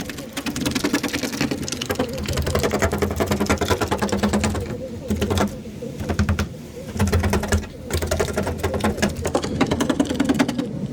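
A small electric power tool runs with a rapid rattle over a steady motor hum, stopping briefly a few times about halfway through.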